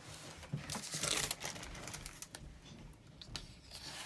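Wax paper crinkling and planner pages rustling as they are handled, with a scatter of light clicks and taps.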